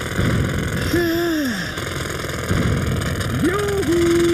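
Pneumatic jackhammer hammering steadily into the road. A voice holds two drawn-out, bending notes over it, about a second in and again near the end.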